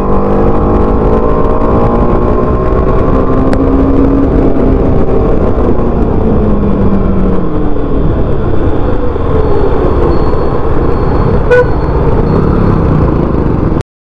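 TVS Apache RR 310's single-cylinder engine running under way, its note falling as the bike slows, under heavy wind rush on the bike-mounted microphone. The sound cuts off suddenly near the end.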